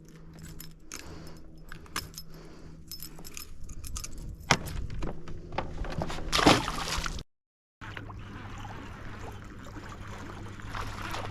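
Water sloshing and splashing beside a small boat, with clicks and rattles of fishing gear, over the steady hum of the boat's motor. There are two louder splashes about halfway through, then the sound cuts out for a moment and resumes with the hum at a lower pitch.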